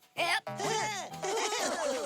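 Playful children's cartoon background music, with a short burst about a quarter second in and then many wobbling, gliding tones.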